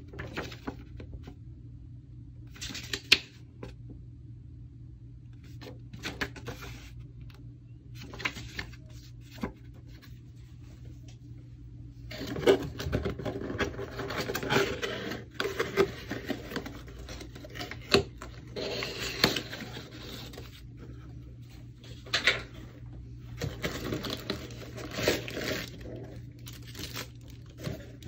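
Hands handling a cardboard product box and its paper insert: scattered taps, slides and paper rustles, growing into denser scraping and rustling from about halfway through as the contents are pulled out. Near the end, a plastic bag wrapped around a glass carafe crinkles.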